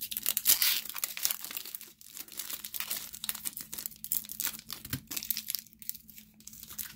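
Foil trading-card pack wrapper crinkling and tearing as it is peeled open by hand, in many short crackles. The wrapper is a tough one to get into.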